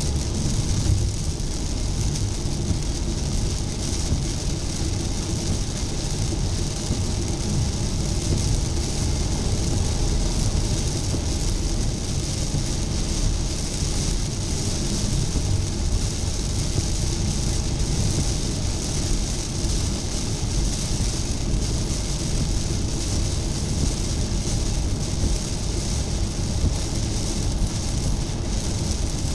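Steady road noise of a car driving through heavy rain, heard from inside the cabin: a low rumble of tyres and engine with a constant hiss of rain and spray.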